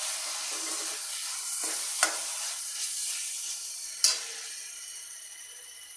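Minced mutton frying in hot oil with sautéed onions in an iron kadai: a steady sizzle while a metal spoon stirs it, knocking sharply against the pan twice, about two and four seconds in. The sizzle eases off near the end.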